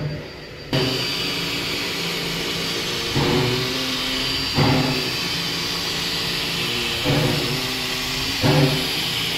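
C17 class steam locomotive standing in steam, heard close up: a steady hiss of steam starts suddenly under a second in. A louder, low pitched pulse comes back every second and a half or so, four times.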